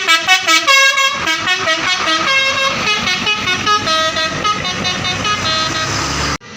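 Bus "telolet" multi-tone air horn playing a fast tune, its notes changing several times a second. It cuts off abruptly near the end.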